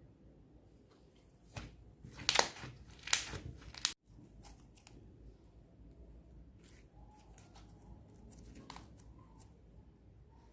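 Clear slime being stretched and squeezed by hand, giving loud crackling, tearing noises for about two seconds that cut off abruptly about four seconds in. Faint scattered clicks and pops follow.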